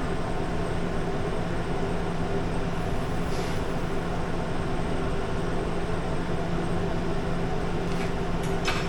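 A steady mechanical hum with a constant low drone and an even hiss.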